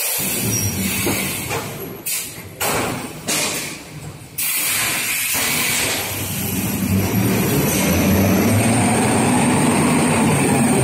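Toilet paper rewinding machine running, its paper web feeding over the rollers: a steady mechanical hum with a hiss over it. The sound sags and drops out for about two seconds near the middle, then comes back at full level.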